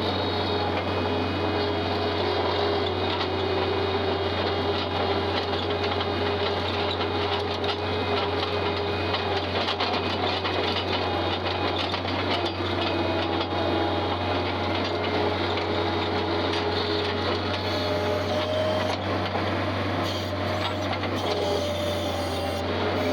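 Farm vehicle engine running steadily under way, a constant low drone with a whine that wavers in pitch.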